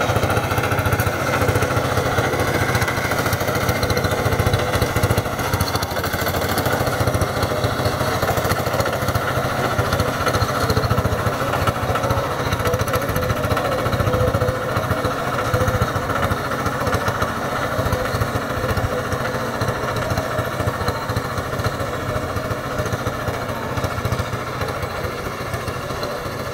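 Quick two-wheel hand tractor's engine running steadily under load while its Kronos rotary tiller churns dry, cloddy soil. It grows a little fainter over the second half.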